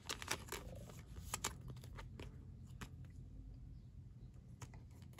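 Clear soft plastic card sleeve rustling and crinkling faintly as a baseball card is slid into it and handled, with scattered small clicks, most of them in the first second and a half.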